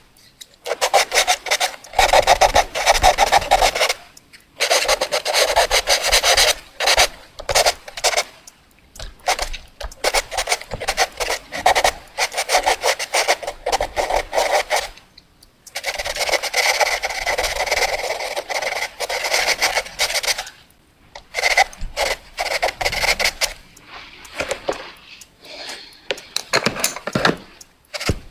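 Pencil scribbling fast on paper: rapid back-and-forth scratchy strokes in long runs, broken by a few short pauses.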